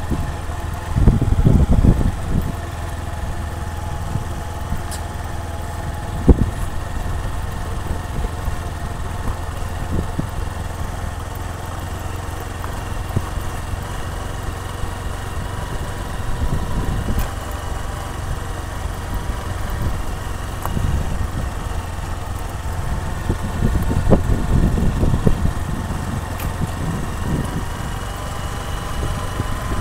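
Motorcycle engine running steadily at low speed, with gusts of wind buffeting the microphone about a second in and again near the end, and a single knock a few seconds in.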